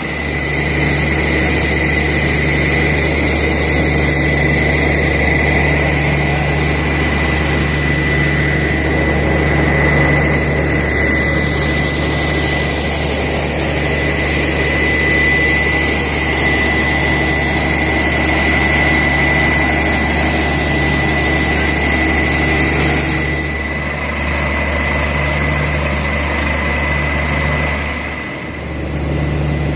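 A borewell drilling rig's engine and air compressor running steadily, with a thin high whine over the low rumble. The loudness dips briefly near the end.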